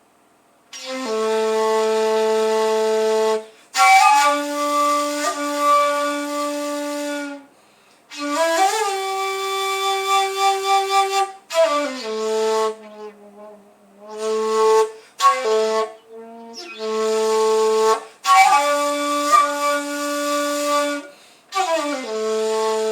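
Seven-hole 2.4 shakuhachi in A, with a coated bore, played in long held, breathy notes with slides between some pitches. The notes come in several phrases broken by short pauses.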